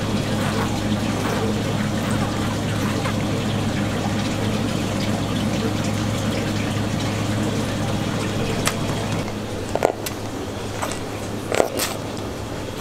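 Steady rush of running water with a low hum, which stops about nine seconds in. After it come a few short knocks and clicks.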